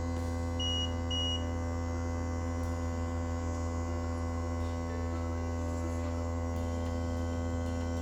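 VacBrew coffee maker's electric vacuum pump running with a steady hum while it draws the coffee through into the pitcher. The machine gives two short, high beeps about half a second apart, a little under a second in.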